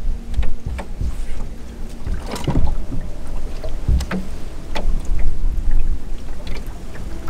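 Wind buffeting the microphone on a small fishing boat, an uneven low rumble, with water slapping against the hull and a few short knocks, the clearest about two and a half and four seconds in.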